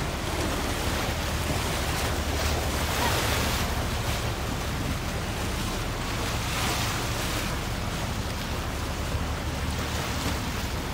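Choppy sea sloshing and slapping against a wooden boat's hull, with a few louder washes of water, over a steady low hum and wind buffeting the microphone.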